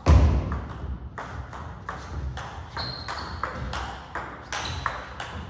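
Fast table tennis rally: the plastic ball clicks sharply off the paddles and the table several times a second, in a quick, even rhythm. A heavy thud comes right at the start, and brief high squeaks, typical of shoes on the court floor, come twice.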